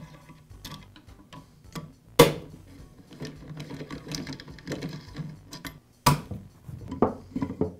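Long hex driver working the screws out of a flooring stapler's base plate: scattered light metal clicks and ticks as the tool turns and shifts in the screw holes. There are two sharp knocks, about two seconds in and about six seconds in.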